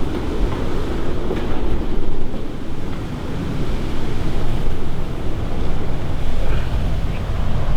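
Wind buffeting the microphone in a snowstorm: a loud, steady low rumble that rises and falls with the gusts.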